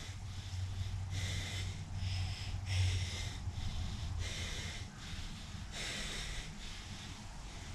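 A man breathing hard through the nose and mouth while holding a plank, about one sharp, airy breath every second and a half, over a steady low hum.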